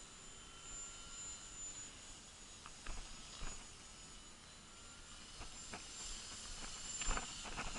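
Faint, steady high whine of a distant electric RC warbird, the brushless motor and propeller of an Art-Tech Texan T-6 in flight, with a few faint clicks.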